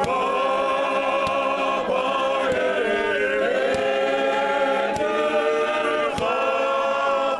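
Men's choir singing a cappella in several-part harmony, holding chords that shift in pitch a few times.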